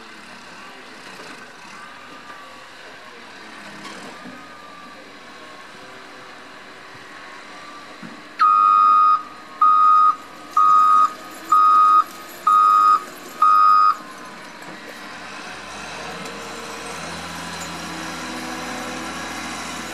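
Wheel loader's reversing alarm sounding six loud, evenly spaced beeps, about one a second, midway through. Near the end the loader's engine grows louder as it moves off.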